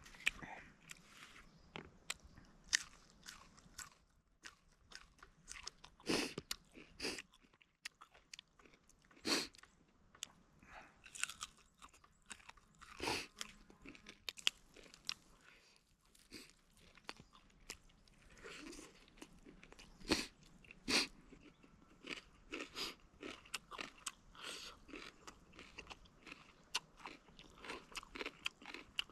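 A person eating tandoori chicken close to the microphone: chewing and biting, with irregular crunches and sharp mouth clicks.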